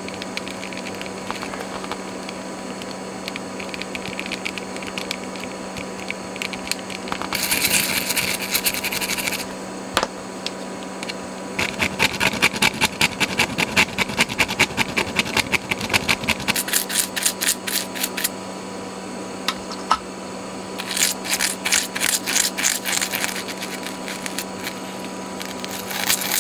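A small metal screwdriver scraping and prying at the corroded base plate of a Sony Walkman cassette mechanism, under a riveted lever, in several bursts of quick back-and-forth strokes. It is scouring out the corrosion that the repairer takes for the cause of the jammed play mechanism.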